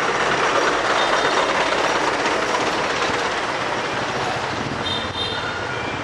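Dump truck's engine running close by, a steady noise that gradually fades.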